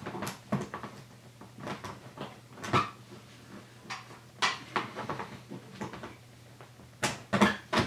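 Pry bar working a retaining clip out of a BMW Z3 M sport seat back: a string of irregular clicks, taps and scrapes, with the sharpest knocks about three seconds in and a cluster near the end.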